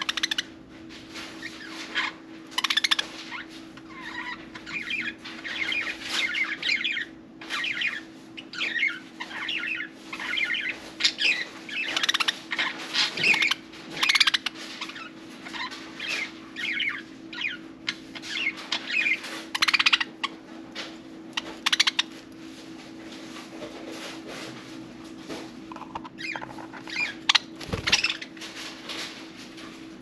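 Budgerigars chattering and warbling in a rapid run of chirps, busy for most of the stretch and thinning out near the end.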